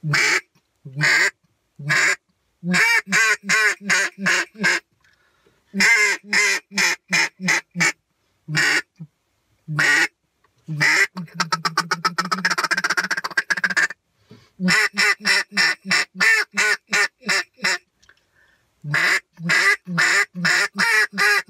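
Homemade acrylic duck call with a short reed blown in quacking sequences: single quacks and runs of several quacks in a row, with a fast chatter of rapid clucks lasting about three seconds near the middle.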